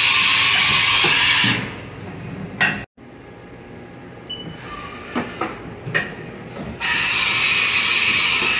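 Haas VF-OE CNC vertical machining center running. A loud, steady hiss lasts about the first second and a half, then gives way to quieter machine noise with a few clicks and knocks. The loud hiss returns about seven seconds in.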